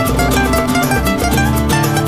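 Background music: fast plucked-string playing, mandolin or guitar, over a bass line and a steady beat.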